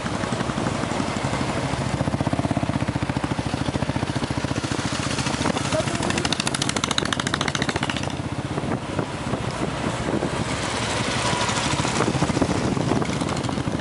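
Motorcycle engine running steadily at road speed, its firing pulses even throughout, with wind rushing over the microphone.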